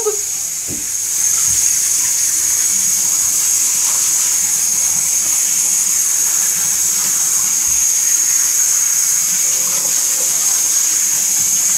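Handheld shower sprayer running steadily, water spraying onto a wet dog's coat and into the bathtub as the dog is rinsed, the spray coming up to full strength about a second in.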